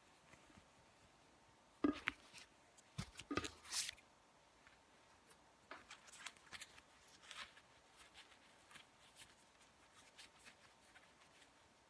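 Faint handling noise of a fabric cold therapy sock and its blue gel pack being worked in the hands: soft rustling, with a cluster of sharp clicks and taps about two to four seconds in.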